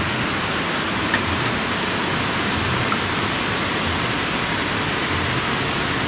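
Steady rush of a rocky waterfall cascade, an even hiss of water, with a couple of faint light clicks about one and three seconds in.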